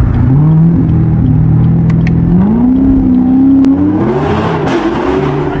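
Chevrolet Corvette C7's 6.2-litre V8 accelerating hard, heard from inside the cabin. The engine note holds, then climbs in steps to a higher pitch. A rushing hiss joins about four seconds in.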